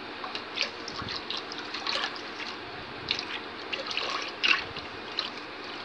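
Hand whisk beating cornstarch into cold water in a stainless steel pot: continuous sloshing and splashing of the liquid with irregular light ticks. This is the starch being dissolved in the water before the pot goes on the heat.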